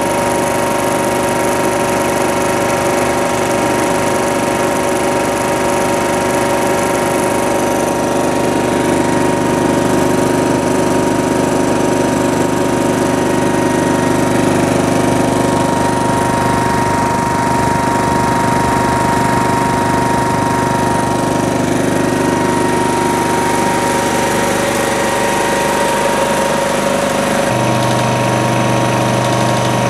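Hatlapa L20 marine air compressor, an electric-motor-driven piston compressor, running steadily with a continuous mechanical sound and hum. Its low hum shifts near the end.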